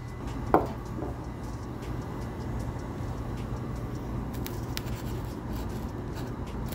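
Steady low hum, with a short squeak about half a second in and a few faint light ticks near the middle.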